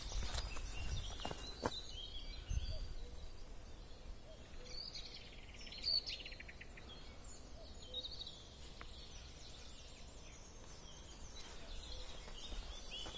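Woodland birds chirping and calling, with a rapid trill of repeated notes around the middle, over a faint outdoor background. There are a couple of sharp clicks in the first two seconds.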